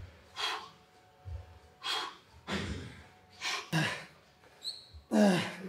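A person breathing hard and fast in short, sharp breaths, about one a second, straining through a high-rep set of split squats, ending in a loud voiced grunt near the end.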